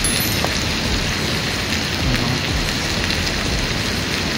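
A steady, even hiss of rain-like background noise with a few faint ticks in it.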